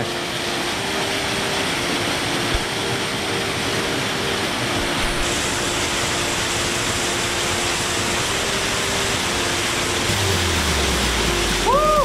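Waterfall: water pouring over rocks with a steady rushing hiss.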